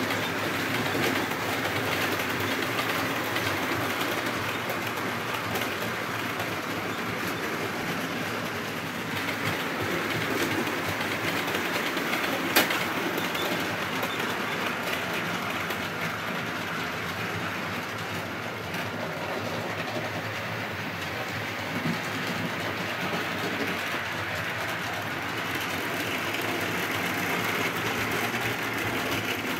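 Model trains running on a model railway layout: a steady rattle of metal wheels over the track, with one sharp click about twelve seconds in.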